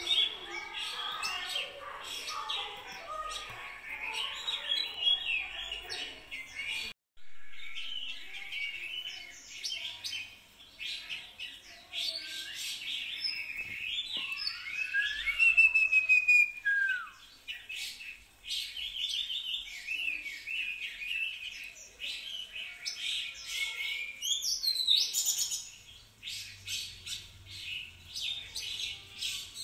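Many small birds chirping and twittering at once in a dense, overlapping chorus. The chorus cuts out for a moment about seven seconds in and then carries on.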